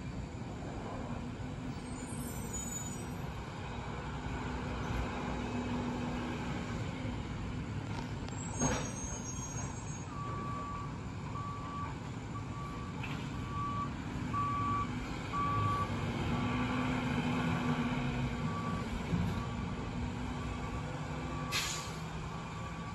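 Mack LR garbage truck's diesel engine running, with its backup alarm beeping at a steady pace from about ten seconds in as the truck reverses. Two short sharp bursts of sound, about nine seconds in and near the end.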